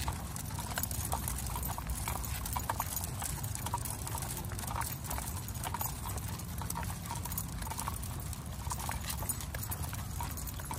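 A large pack of leashed dogs walking on asphalt: a dense, irregular clicking of many claws and paws on the pavement, with a steady low rumble underneath.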